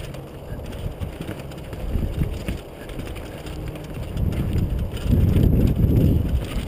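Wind buffeting an action camera's microphone while a mountain bike rattles and knocks over rock ledges on a rough descent; the rumble swells louder about five seconds in.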